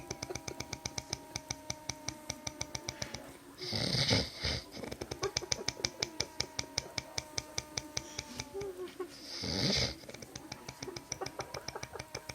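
A man snoring, a rasping, chainsaw-like snore: long stretches of rapid, even rattling pulses with a low buzz, broken twice by a short hissing breath, about four seconds in and again near ten seconds.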